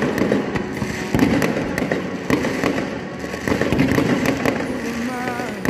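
Many fireworks and firecrackers going off together: rapid, overlapping bangs and crackling, with a short wavering whistle near the end.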